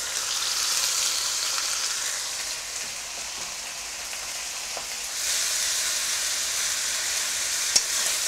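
Chicken pieces and sliced onion frying in oil in the stainless steel base of a pressure cooker, a steady sizzle that grows louder about five seconds in as they are stirred. A sharp click near the end.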